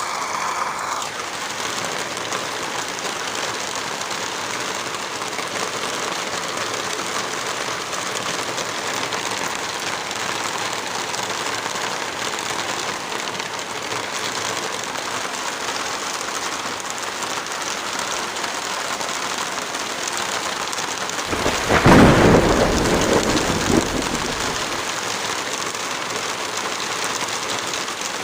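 Heavy rain falling steadily. About three-quarters of the way through, a sharp crack and a low rumble lasting about three seconds rise over the rain and then die away.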